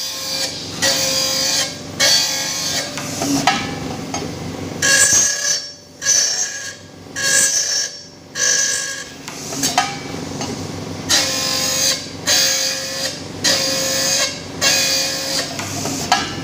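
Grinding wheel of an FW-600C1 circular saw blade sharpening machine grinding the blade's teeth one after another. It makes rhythmic rasping strokes about once a second, with a short break near the middle.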